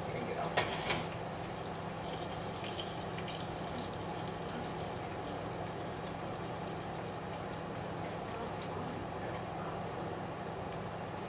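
Steady sizzle of a just-cooked ribeye steak and onions in their juices in a foil-lined pan, with faint scattered crackles over a low hum. A single knock comes about half a second in.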